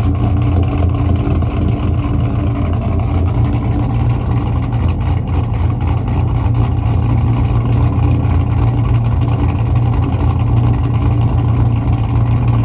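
Built 5.3 LS V8 bored to 5.7 with a big cam, running steadily at idle through long-tube headers, an X-pipe and Black Widow Neighbor Hater mufflers.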